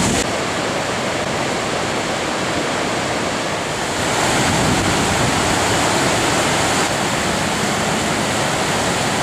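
Loud, steady rush of a large waterfall, Niagara Falls, pouring down; the sound shifts slightly about four and seven seconds in.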